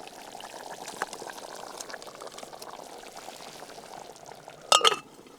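Potato curry gravy bubbling and simmering in a pan over a campfire, a steady fizzing with small pops. A single sharp clank sounds near the end.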